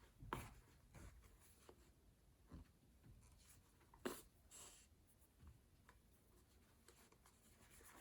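Faint scratchy rustles and small ticks of hand sewing: a needle and thread being drawn through denim as a hem is stitched by hand, the clearest scratch about four seconds in.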